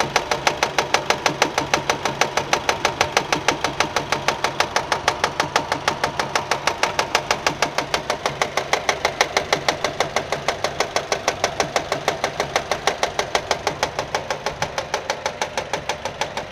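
Nissan Micra 1.2 petrol engine idling with a loud, even knocking, about four to five knocks a second. The noise was traced not to the engine but to a fraying alternator belt slapping against the metal body as it turns.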